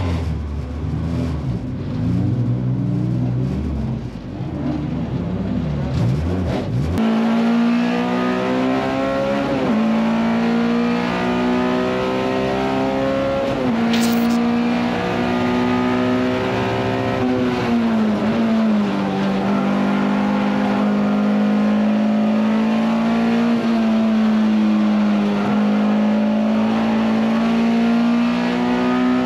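Honda S2000 race car's four-cylinder engine, heard from inside the cockpit. For the first several seconds it runs at low speed with a low rumble. About seven seconds in it pulls hard at high revs, the pitch climbing and then dropping again several times as it shifts and lifts.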